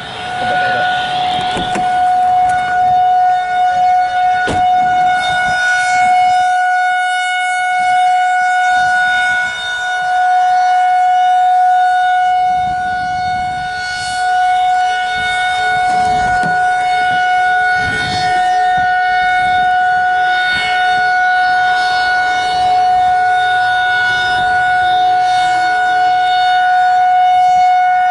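Federal Signal 2001 rotating outdoor warning siren sounding a steady single-tone alert for a scheduled test. The pitch holds level while the loudness swells and fades slightly.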